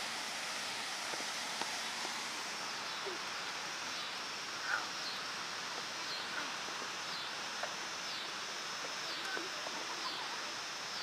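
Steady outdoor background hiss, with a few faint short chirps and ticks scattered through it.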